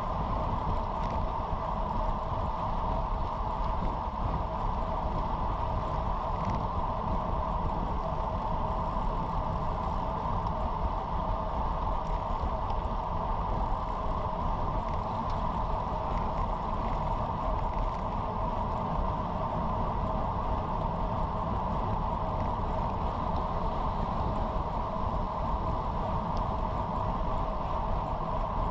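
Steady wind rush on the microphone with road and tyre noise from a road bike riding at about 25 mph, unchanging throughout.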